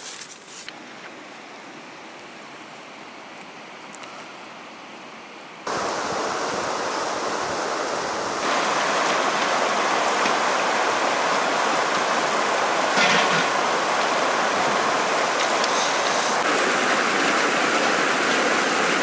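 Fast mountain river rushing over rocks, a loud steady roar of water that comes in suddenly about six seconds in and grows louder a couple of seconds later; before that only a faint steady outdoor hiss.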